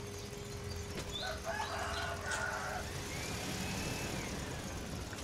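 A rooster crowing once, about a second in, for roughly a second and a half.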